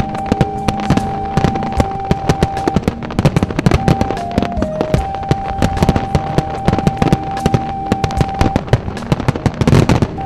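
A fireworks barrage: many sharp bangs and crackling star bursts in quick succession, with a cluster of heavier bangs near the end. Music with long held notes plays over it, its melody stepping down in pitch about four seconds in.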